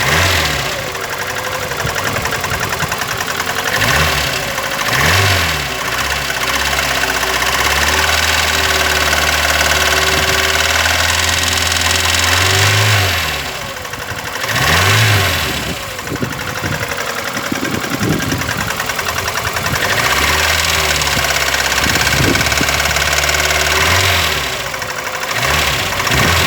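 VAZ 21099's four-cylinder engine knocking from inside. It is revved in several short throttle blips and held at raised revs twice, each time dropping back toward idle.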